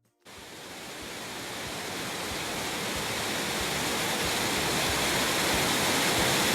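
Lolaia waterfall: a steady rush of falling water that fades in from silence and grows steadily louder.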